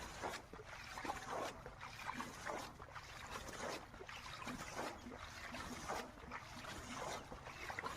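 Water being bailed out of a small dammed-off stretch of river to drain it for fish, with a splash about once a second.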